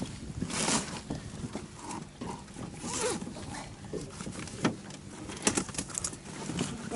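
A fabric bag being handled and shifted in a boat: irregular rustles and a few sharp knocks, over a steady low rumble of wind on the microphone.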